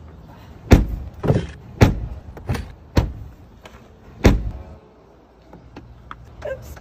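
A series of heavy thuds and clunks from a black SUV's door, about six of them over the first four and a half seconds, then a few light clicks near the end.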